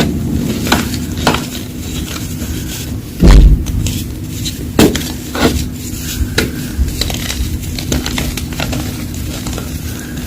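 Reformed gym chalk being crunched and crumbled: irregular crisp cracks and snaps, with a heavy low thump about three seconds in.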